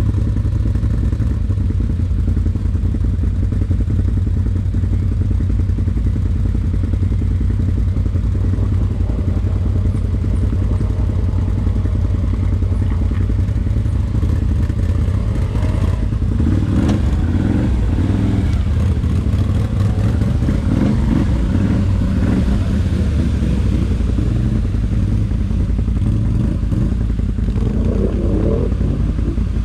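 ATV engine running with a steady low drone, with busier, uneven noise joining from about halfway through.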